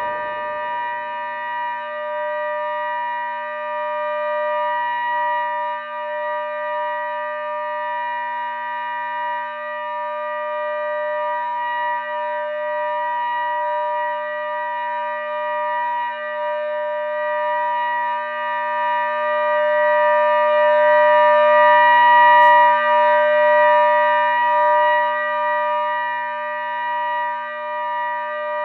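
Synthesized ACA Hurricane 130 civil-defense siren with a 10/16 port ratio, made from sawtooth waves, sounding the steady Alert signal: a two-tone chord held at full pitch, swelling and fading in loudness and loudest about three-quarters of the way through.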